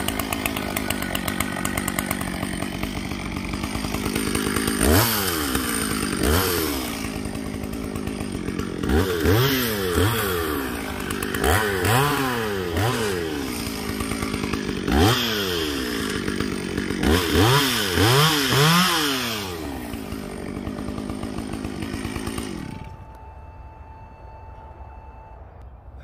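Gasoline chainsaw running and cutting branches, revving up and down over and over with an idle between cuts. Near the end the saw stops, leaving faint outdoor background.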